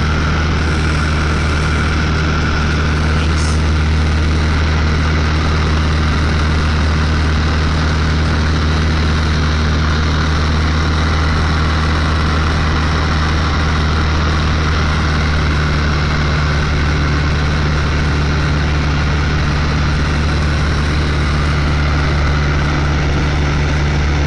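Small high-wing plane's engine and propeller droning steadily in cruise, heard from inside the cabin.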